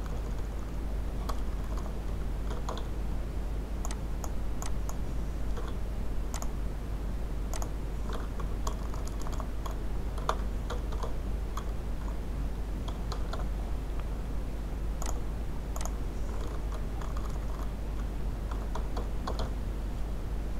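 Computer keyboard typing and mouse clicks: scattered, irregular keystrokes and clicks while parameter names are entered in the software, over a steady low hum.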